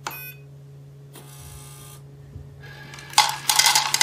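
Automatic pet feeder: a short beep, then its motor hums and dry food rattles out into the bowl in loud bursts from about three seconds in.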